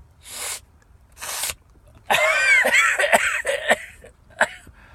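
A man takes two sharp breaths in, then about two seconds in lets out a loud, voiced fit of sneezing and coughing with several sharp bursts, set off by cayenne pepper sniffed into the nostrils.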